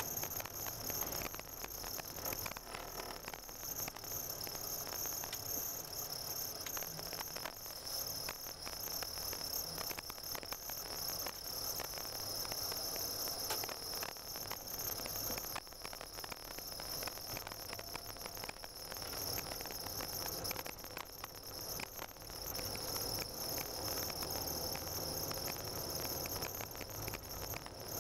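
Car driving along a snow-covered road, heard from inside the cabin: a steady low rumble with a dense fine crackle from the tyres on the snow, under a steady high-pitched whine.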